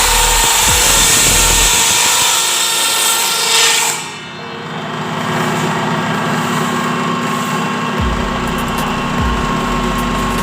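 Power tool running hard with a loud, hissy sound that drops away sharply about four seconds in, then runs on more steadily with a low hum, as if coming off its load.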